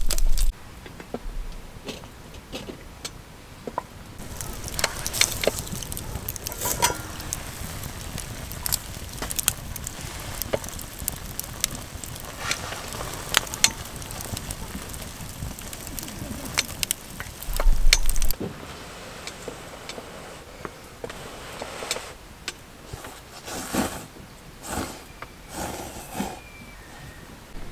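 Wood fire crackling in a metal fire pit, with irregular sharp pops and snaps over a soft steady hiss. A brief low rumble breaks in about two-thirds of the way through.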